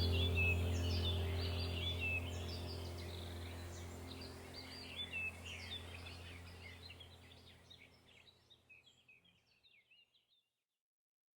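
Small birds chirping and twittering over a low, steady musical drone. Both fade out slowly to silence about eight seconds in.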